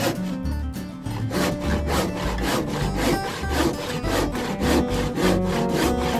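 Background music with a steady beat and a stepping bass line, with a scratchy rhythmic percussion on each beat.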